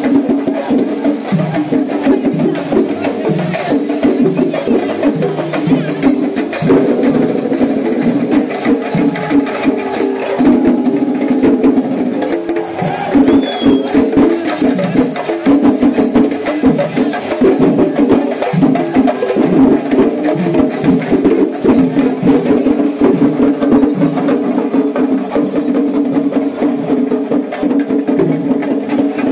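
Traditional percussion ensemble playing a fast, dense, unbroken rhythm of drums and hand percussion.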